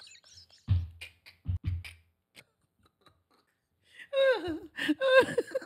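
Mouth noises from a person: two low, muffled puffs about a second apart, like a vocal imitation of swimming under water. Near the end comes a voice sound whose pitch glides downward.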